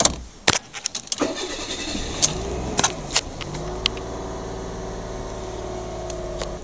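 Suzuki Wagon R's 660 cc three-cylinder engine started with the key, heard from inside the cabin. After a few clicks it cranks briefly, catches about a second in and revs up, then settles into a steady idle. It idles quietly on freshly replaced engine mounts.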